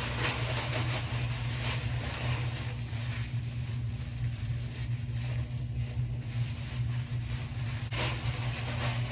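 Thin plastic shopping bag rustling and crinkling as it is handled and pulled over a hand as a makeshift glove, over a steady low hum.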